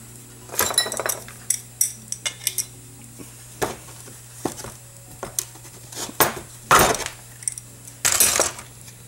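Small metal carburetor parts and tools clinking and knocking on a wooden workbench while an Amal Monobloc carburetor is taken apart, in a string of separate clicks and knocks with the loudest a little before the end. Two short scrapes, one at the start and one near the end, over a steady low hum.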